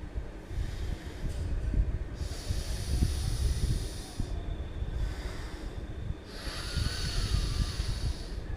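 Forceful nasal breathing for alternate-nostril breathing (anulom vilom pranayama): several long rushing breaths in and out through the nose, each one to two seconds, with short pauses between them. A steady low rumble runs underneath.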